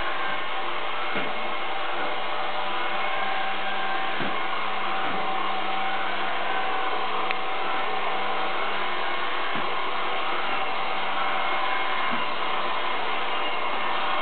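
Robot vacuum cleaner running, a steady whirring hum of its motor and brushes, with a few faint knocks along the way.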